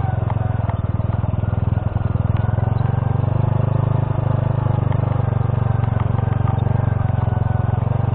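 Honda C70 motorbike's small single-cylinder four-stroke engine running steadily at low speed while riding over a rough gravel track, with a few faint clicks and rattles.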